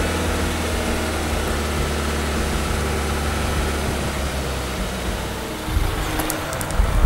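Ford diesel engine idling steadily while its DPF regeneration is running. A few sharp clicks and knocks come near the end.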